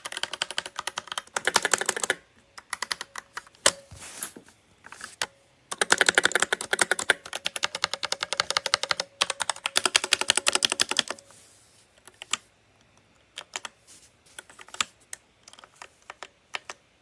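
Keys of a MageGee 75% mechanical keyboard clicking under fast, hammering presses, in two long dense runs with scattered single keystrokes between and after. It sounds clicky without being loud.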